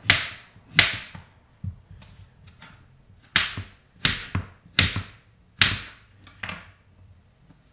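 Kitchen knife chopping peeled potatoes on a cutting board: about eight sharp knocks as the blade goes through the potato and hits the board, unevenly spaced, most under a second apart.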